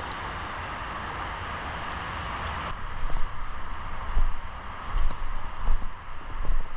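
Steady rushing noise that cuts off suddenly about three seconds in. It is followed by irregular deep thumps and buffeting on the microphone, typical of wind and movement on a body-worn camera.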